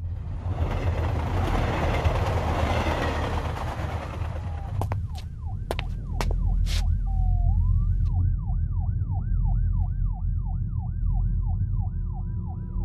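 Police siren over a steady low rumble: after a few seconds of rushing noise and some sharp clicks, it wails briefly, then switches to a fast yelp of about three rising sweeps a second.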